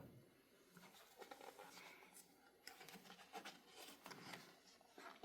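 Near silence with a few faint paper rustles and light taps as the pages of a thick hardcover book are handled and turned.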